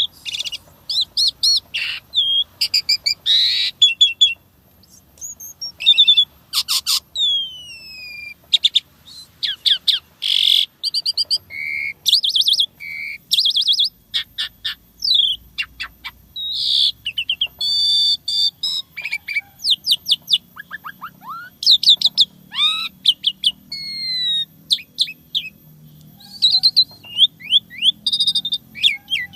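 Asian pied starling (jalak suren) singing a fast, varied song: sharp chirps, short falling whistles and rapid rattling trills in quick succession, with only brief pauses.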